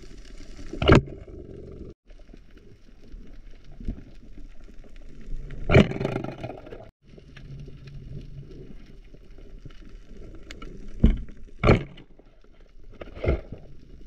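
Underwater noise heard through a diving camera's housing: a muffled steady rumble with a faint hum, broken by five short, loud rushes or knocks, one about a second in, one near the middle and three close together near the end.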